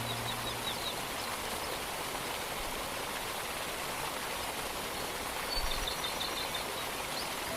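Steady rushing of a distant waterfall, with two brief runs of faint, quick bird chirps, one at the start and one about six seconds in.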